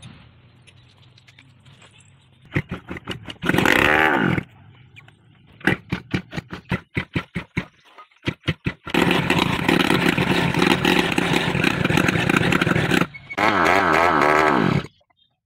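Yamaha RX100's two-stroke single-cylinder engine being kick-started. It fires and revs briefly with its pitch falling, then runs on a string of separate firing pops before catching and revving loudly for several seconds. Near the end its pitch drops and it cuts off suddenly.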